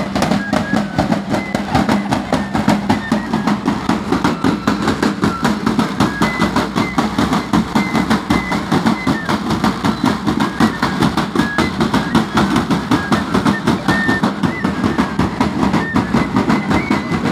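Drums beaten in a steady, fast rhythm of about four beats a second, carried along by marchers in a walking procession.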